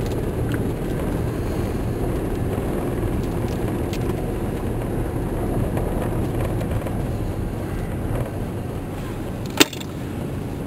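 Vehicle interior while driving: a steady low rumble of engine and tyres, with one sharp click near the end.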